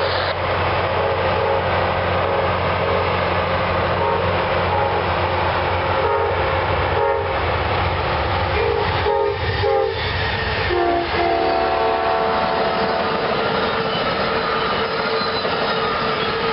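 Amtrak passenger train with GE P42DC diesel locomotives passing, its horn sounding in a series of short blasts and then a longer multi-tone blast, over a steady low diesel rumble.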